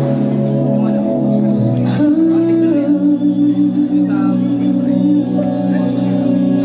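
Live band playing a slow ballad: sustained keyboard chords that change about two seconds in, then pulse. A woman's singing voice comes in over them in the later part.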